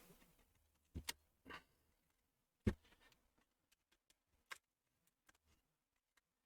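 A few faint, scattered clicks as a metal prying tool is worked down the edge of a laptop screen bezel, the plastic bezel clips letting go; the loudest click comes about two and a half seconds in.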